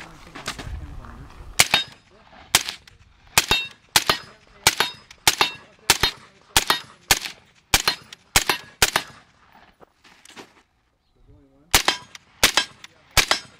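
Suppressed LMT AR-pattern rifle firing single shots at a steady pace, about one every two-thirds of a second. A dozen shots come first, then a pause of about three seconds, then three more.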